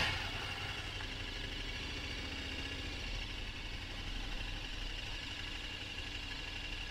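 Motorcycle engine idling steadily, heard from the rider's seat, with another motorcycle going past close by right at the start.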